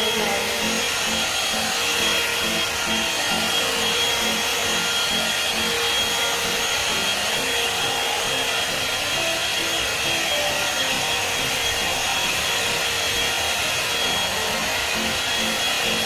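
Hair dryer volumizer brush running steadily on its high setting: a constant rush of blown air with a thin, steady high whine from the motor.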